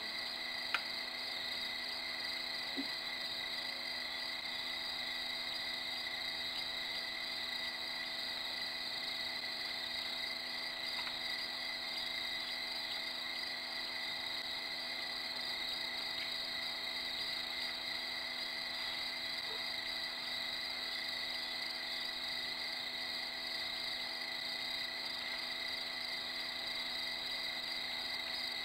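Steady night chorus of crickets, a continuous high trilling that does not change, with a single sharp click about a second in.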